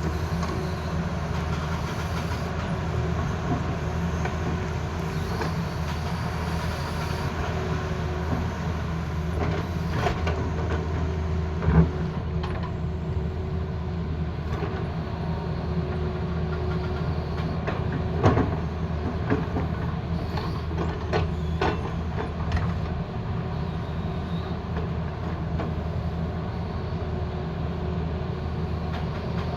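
Tata Hitachi excavator's diesel engine running steadily, with two sharp knocks: one about twelve seconds in, another about eighteen seconds in.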